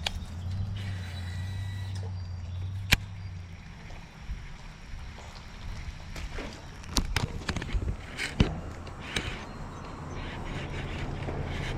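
Scattered sharp clicks and knocks of an angler handling a fishing rod and reel while casting and retrieving, the loudest about three seconds in and a cluster later on, over a low steady hum.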